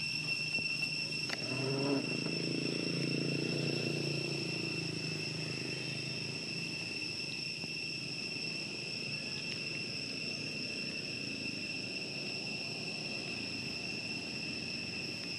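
Insects chirring in a steady high-pitched drone that holds one pitch throughout, over a low rumble that swells about two seconds in and slowly fades.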